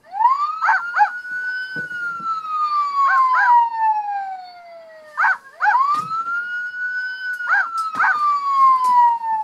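Electronic sound effects from a Paw Patrol Glow Friends Chase light-up plush: a police-siren wail that rises quickly and then falls slowly, played twice, with pairs of short dog barks over it. The toy's sound is set off by motion.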